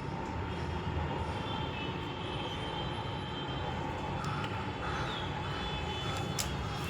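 Steady background noise with a faint steady hum, without any distinct event.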